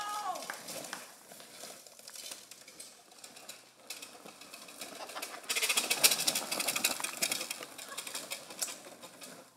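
Mini bike tyres rolling and skidding over a loose dirt trail: a dense crunching, crackling noise of grit under the wheels, loudest for a couple of seconds a little past halfway.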